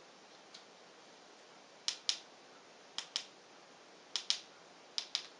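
Buttons of a Lumos wireless handlebar remote clicking: four pairs of sharp plastic clicks about a second apart, starting about two seconds in.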